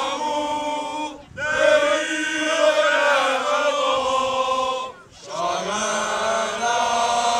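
A group of men singing together in a chant-like song, in long sustained phrases with two brief breaks, about a second in and about five seconds in.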